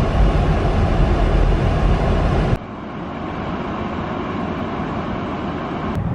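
Road and engine noise inside a moving car: a steady low rumble. It cuts off suddenly about two and a half seconds in, giving way to a much quieter, steady street-side hiss.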